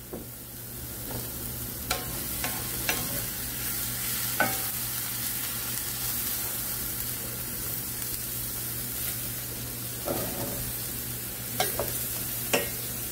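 Butter melting in a stainless steel pot and onions and peppers softening in a skillet, with a steady sizzle. A few light knocks come early on. Near the end there is a rougher clatter as sliced mushrooms go into the pot and a wooden spoon stirs them against the metal.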